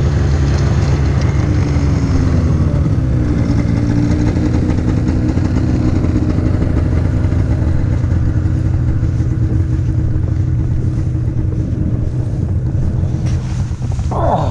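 Snowmobile engine idling steadily, with another engine's note falling in pitch over the first few seconds, and wind buffeting the microphone.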